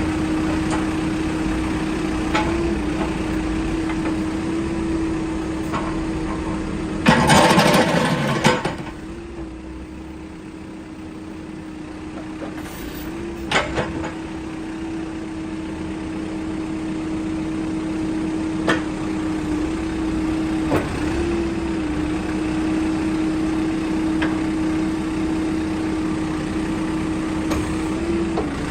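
Case 695SR backhoe loader's diesel engine running steadily. About seven seconds in there is a loud burst lasting over a second, after which the sound drops quieter and gradually builds back up. A few sharp knocks are scattered through.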